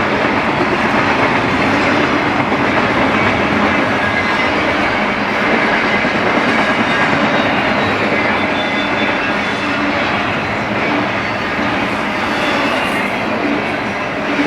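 Freight train rolling past: a steady, loud noise of steel wheels on rail, with the clickety-clack of wheels over rail joints.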